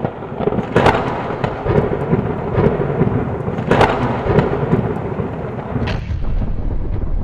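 Loud, thunder-like rumbling sound effect with sharp cracks about a second in, near four seconds and again near six seconds.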